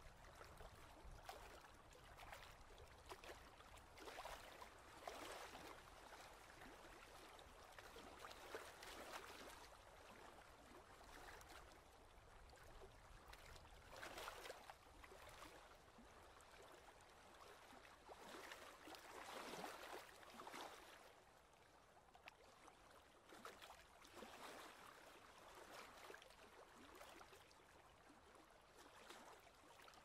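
Faint small waves lapping and gurgling against a rocky lakeshore, swelling softly every few seconds with small scattered ticks.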